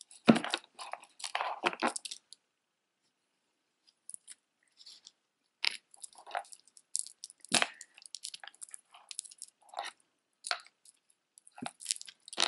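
Tangled beaded wire necklaces being handled and pulled apart on a table: irregular light clicks and rattles of beads and chain. There is a busy run in the first two seconds, a short pause, then scattered clicks.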